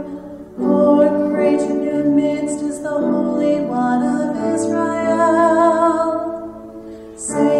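Music: a keyboard playing held chords, with a woman's voice singing a psalm melody over them. The sound dips briefly just after the start and again about a second before the end.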